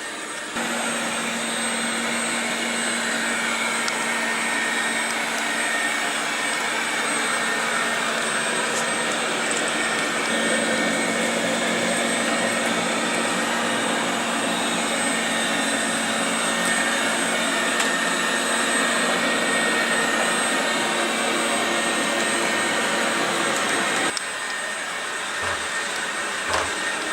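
Wolkinz COSMO robot vacuum running in wet-mop mode: a steady whirring hum from its suction fan and brushes. It grows louder about half a second in and drops slightly near the end.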